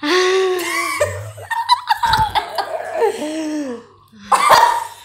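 Several people laughing loudly.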